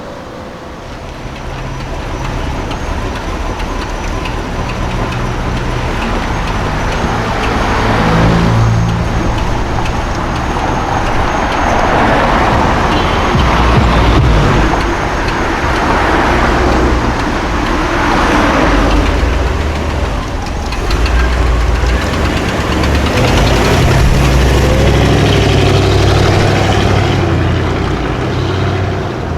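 High-performance car engines on a city street, rising in several loud surges of acceleration and revving, with a deep low exhaust rumble building again near the end.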